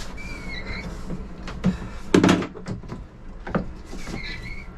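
Hand tools working on the engine's alternator adjusting bracket: a few metal clanks and knocks, the loudest about two seconds in, with short squeaks near the start and near the end. A steady low hum runs underneath.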